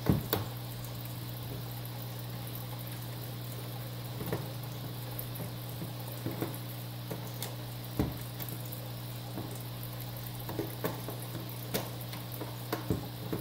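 Scattered small clicks and taps of a metal T-handle Torx driver working at a loosened screw in the plastic housing of a Neato BotVac Connected robot vacuum, trying to lift the screw out, over a steady low hum.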